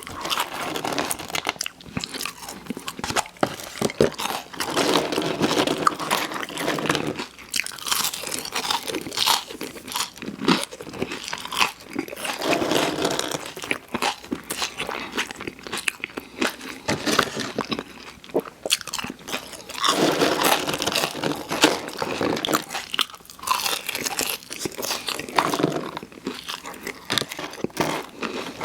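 Close-miked biting and chewing of crunchy fast food, the crunches coming in irregular clusters.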